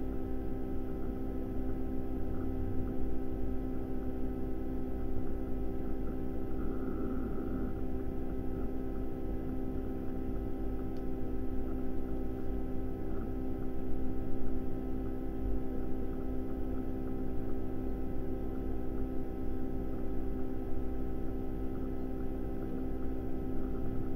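Steady electrical mains hum of several held tones over a low rumble, unchanging throughout.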